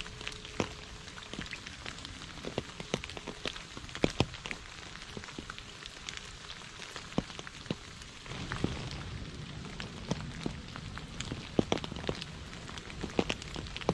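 Rain falling on puddles and wet leaves: a steady hiss with many separate drops hitting close by. About eight seconds in, a low rumble joins beneath the rain.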